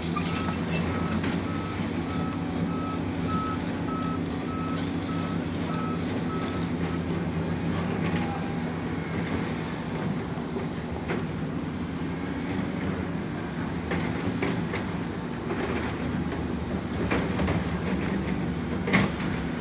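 Construction vehicle engine running steadily, its reversing alarm beeping evenly for the first several seconds, with a brief loud high squeal about four seconds in and scattered knocks.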